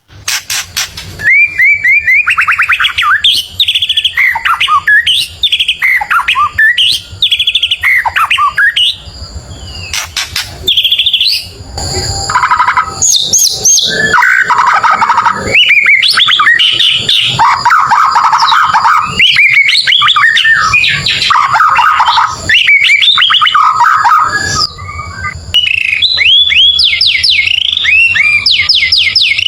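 White-rumped shama (murai batu) singing loudly: a varied song of rapidly repeated whistled notes, sweeps and trills, broken by a few short pauses.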